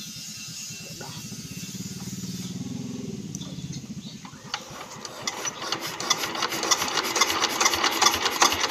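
Single-cylinder diesel engine of a công nông two-wheel tractor running. It is slow and low at first, then from about halfway it runs louder and faster with a rapid clatter as it is revved up.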